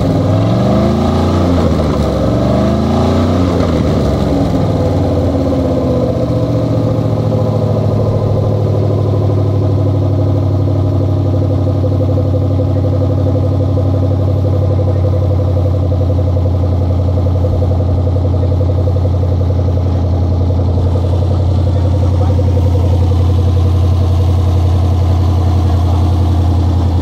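Rover P6's 3.5-litre aluminium V8 engine, run out of the car, revved up and down by hand at the throttle several times during the first six seconds or so, then settling to a steady idle.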